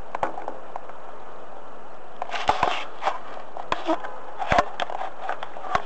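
Handling noise picked up by the dashcam's own built-in microphone: fingers touching and turning the camera at its lens, making a run of sharp clicks and knocks over a steady hiss. The clicks bunch up about two and a half seconds in and again just after four and a half seconds.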